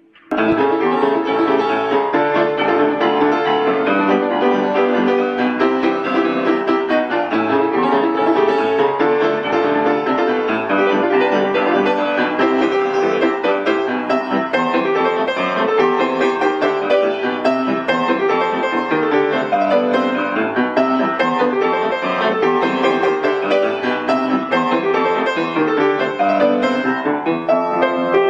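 Piano music with quick, busy notes, starting abruptly.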